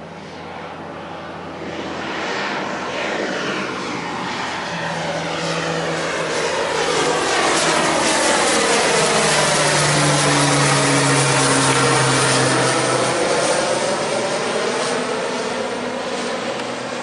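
Pilatus PC-12/47E single-engine turboprop (Pratt & Whitney PT6A-67P) at takeoff power, passing by. Its propeller and engine noise grows louder, peaks about two thirds of the way through, then drops in pitch and fades as it moves away.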